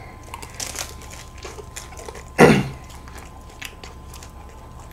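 Close-miked eating of ice cream: scattered small clicks and smacks of biting and chewing a wafer ice-cream cone and of a plastic spoon in a cup, with a short breathy slurp under a second in. About halfway a short loud vocal sound from one of the eaters, falling in pitch, is the loudest thing.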